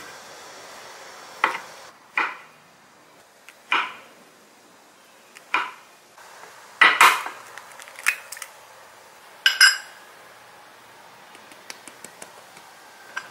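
Kitchen dishes and utensils clinking and knocking, about seven separate irregular strikes, one of them ringing briefly like a glass or ceramic bowl about two-thirds of the way through.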